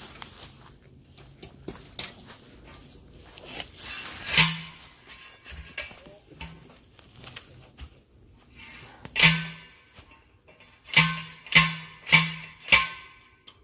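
Steel claw hammer driving fence staples into a tree trunk to fasten woven wire fencing, each blow landing with a short metallic ring. There is one strike about four seconds in, another after nine seconds, then four quick strikes near the end, with faint scuffing in between.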